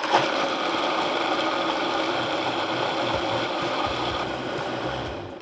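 Countertop blender starting up and running steadily, blending sesame seeds and pepitas with water into a seed milk. Near the end it cuts out for a moment and starts again as it is stepped up to a higher speed.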